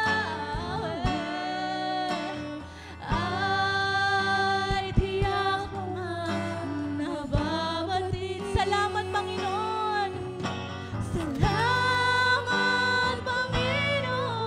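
Live worship band playing a slow Tagalog worship song: a woman sings long, held notes into a microphone over acoustic guitar, electric bass and a drum kit.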